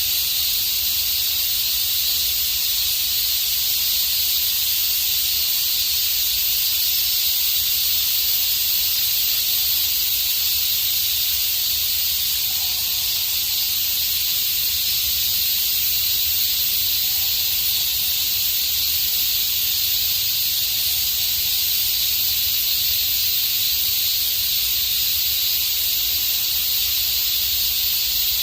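Dense chorus of cicadas, a steady, unbroken high-pitched buzz.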